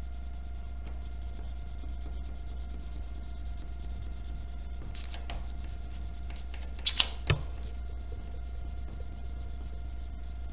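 Wax crayon rubbed quickly back and forth on paper, pressed hard to colour in a large area, with a couple of sharp taps about seven seconds in.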